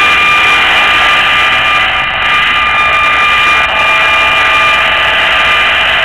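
A handheld RF electrosmog meter's audio output gives a loud, steady buzzing hiss with two constant whistling tones running through it. The meter is set to max and is picking up microwave signals, which the owner attributes to cell antennas in the area.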